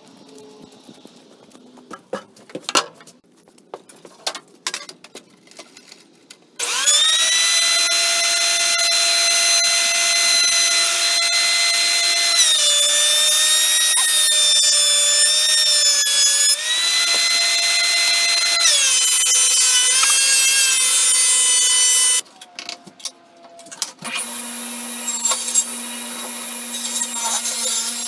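Benchtop thickness planer starting about six seconds in and running with a loud high whine that drops in pitch twice as a board passes through the cutterhead, then shutting off. A couple of seconds later a table saw starts and runs steadily. Light clatter of wood being handled before the planer starts.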